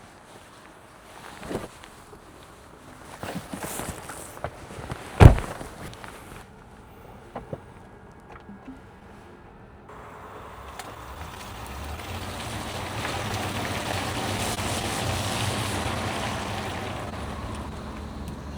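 A few knocks and one loud thump about five seconds in, then a vehicle's noise with a low hum swelling and easing off over the last eight seconds, as when a vehicle passes.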